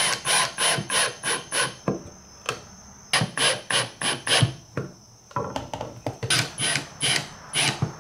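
Brushless cordless drill driving screws through an aluminium bracket into a wooden turkey-fan mount, in three spells of quick, even pulsing, about five a second, with short pauses between.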